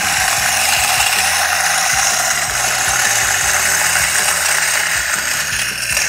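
Lomax HK600 electric coffee grinder running steadily, grinding coffee beans on its coarsest setting (level 8).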